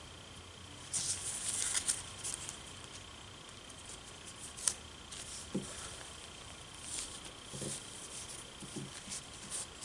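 Hands handling a plastic action figure and its small parts on a tabletop: scattered light clicks and rustles, a cluster of them about a second in and one sharp click near the middle, as figure heads and accessories are pulled off and fitted.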